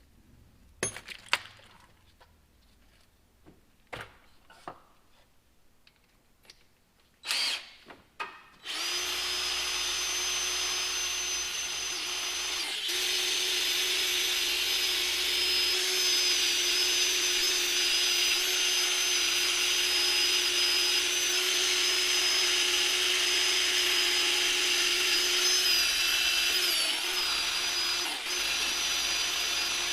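A few light clicks and knocks, then about eight seconds in a small electric motor starts and runs steadily for about twenty seconds with a constant whine, stopping just before the end.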